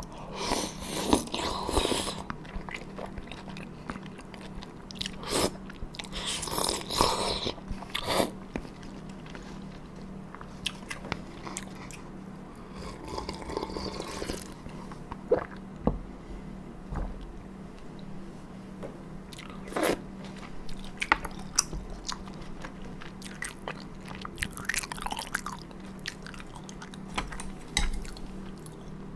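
Close-miked mouth sounds of a person biting and chewing a large Korean dumpling (mandu), wet and irregular, with a sip of broth from a ladle about halfway through.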